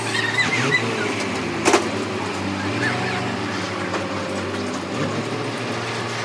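Heavy diesel engine running steadily while heavy machinery hoists a road roller, with a single sharp metallic clank a little under two seconds in.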